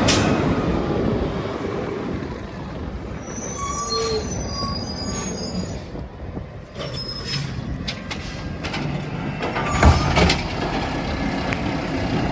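Green-waste garbage truck working: its engine runs steadily, high metallic squeals come and go in the middle, and a loud bang comes near the end.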